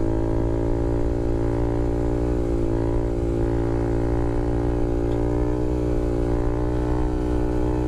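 Honda Grom's 125 cc single-cylinder four-stroke engine held at steady throttle through a wheelie, a droning note that stays nearly level with a slight sag and recovery about three seconds in.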